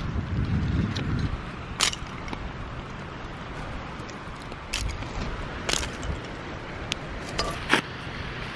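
Hands laying a fire in a small metal camping wood stove: several sharp snaps and clicks of driftwood twigs and stove parts, the loudest near the end, over a steady hiss. A low rumble dies away after about a second.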